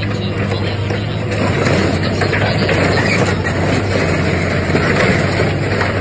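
Excavator's diesel engine running steadily while its grapple tears at a wrecked car to rip out the engine, with metal crunching and scraping that gets louder about a second and a half in.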